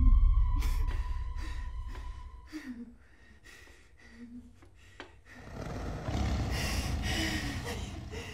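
A deep boom right at the start fades over about three seconds beneath a thin, steady, high ringing tone, while a frightened woman gasps and whimpers in short breaths. From about five and a half seconds in, a rushing noise with a low rumble swells and holds.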